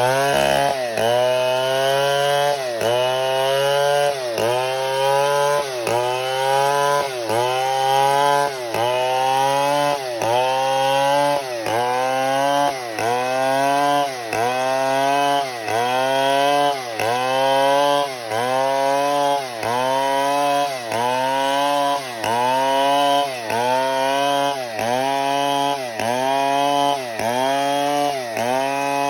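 Stihl 070 two-stroke chainsaw running at high revs while cutting wood, its engine note dipping and climbing back about once a second.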